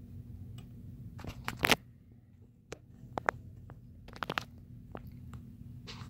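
Sharp metal clicks and short scrapes as the parts of a Hornady Camlock case trimmer and a brass rifle case are slid and seated by hand, over a steady low hum. The loudest cluster of clicks comes about one and a half seconds in, with scattered single clicks after.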